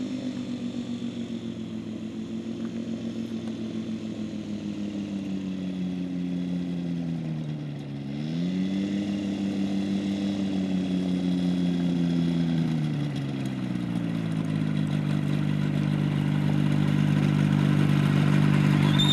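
Motorized hang glider (ultralight trike) engine running and coming closer, growing louder. It is throttled back about a third of the way in, opened up again a moment later, and eased down once more past the middle.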